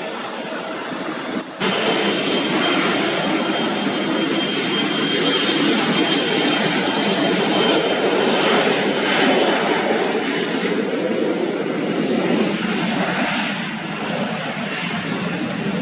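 Jet airliner's engines running close by, a loud rushing noise with a thin steady high whine; it jumps up sharply about a second and a half in and eases slightly toward the end.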